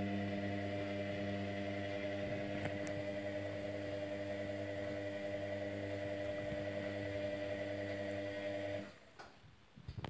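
Indesit Innex front-loading washing machine's drum motor running as the drum turns a heavily sudsed load during the wash, a steady hum with a faint whine. The motor stops about nine seconds in.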